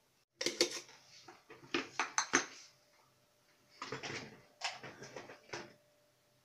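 Kitchen containers and utensils clattering and tapping in two bursts of quick knocks, one starting about half a second in and one around four seconds in.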